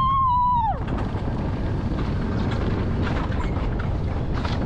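Wiegand alpine coaster sled running down its rail track, a steady rushing rumble with wind on the microphone. Right at the start the rider lets out one high cry that rises, holds for about a second and falls away.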